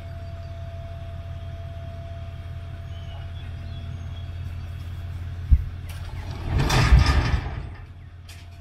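Heavy vehicle engine idling steadily, with a sharp knock about five and a half seconds in, followed by a loud rushing burst of noise lasting just over a second.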